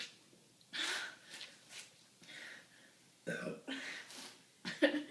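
People shotgunning cans of drink: short bursts of gulping and gasping breaths, with a burp near the end.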